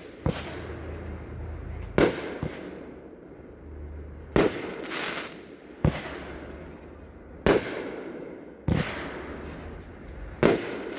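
Consumer fireworks cake, Top Gun's 16-shot Space Combat, firing shot after shot. There are about seven sharp bangs, one every second and a half or so, each trailing off in a fading hiss.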